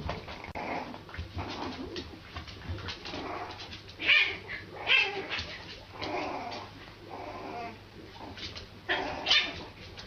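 A French bulldog puppy yapping in short, uneven barks, loudest about four, five and nine seconds in. These are play barks aimed at a cat, inviting it to play.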